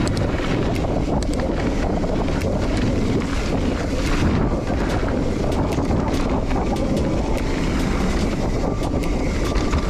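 A mountain bike descending a dirt trail at speed: wind buffeting the camera microphone and knobby tyres rolling over dirt, with frequent sharp rattles and clicks from the bike.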